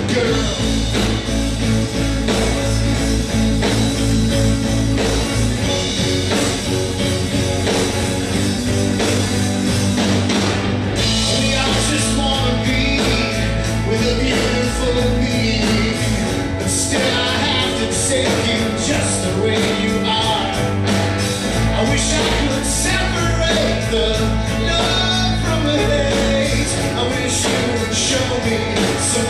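Live rock band playing a song: electric guitars and drums, with a man singing lead at the mic.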